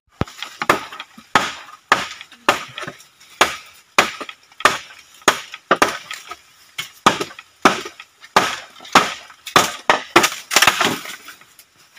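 Machete chopping into a dry bamboo pole: a steady run of sharp woody strikes, about two a second.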